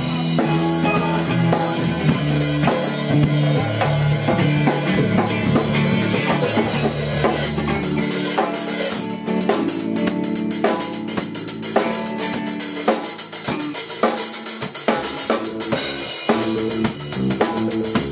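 A live band playing, the drum kit loudest with bass drum and snare hits over sustained pitched instruments. The low bass notes drop out about eight seconds in and return near the end.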